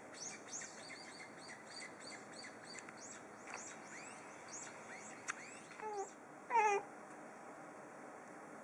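Many short, high bird chirps, several a second, for about five seconds, then a calico cat meows twice briefly at the birds, the second meow the loudest.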